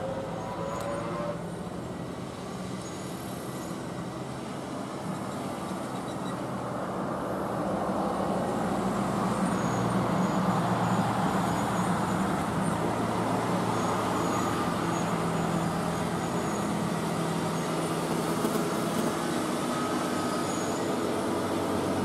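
Diesel engine of a FAW heavy truck pulling a lowbed trailer loaded with an excavator, a steady low engine drone that grows louder from about a third of the way in as the truck approaches, then holds level as it comes close.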